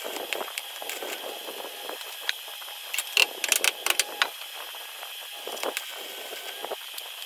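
Stick (arc) welding on car body steel: the electrode's arc crackles and hisses as it welds the apron to the tie member. A cluster of sharp, loud ticks and taps comes about three to four seconds in.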